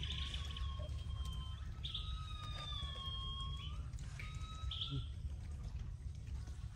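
High, drawn-out whistling animal calls, several in a row, each lasting a second or more and sliding slightly down in pitch, over a steady low rumble.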